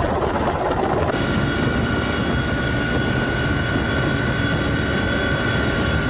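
Helicopter engine and rotor noise, loud and steady, heard from on board. About a second in the sound changes abruptly, and a steady whine runs through the noise from then on.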